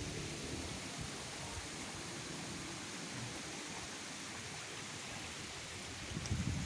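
Strong wind rushing steadily, with a brief louder low buffet on the microphone near the end.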